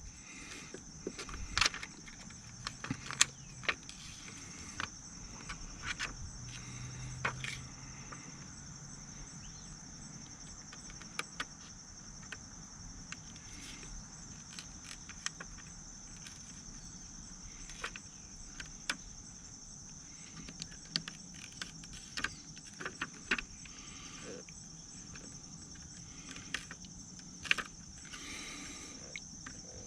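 Scattered small clicks and taps of hands handling and pressing a plastic screen protector onto a motorcycle radio's screen, over a steady high-pitched hum.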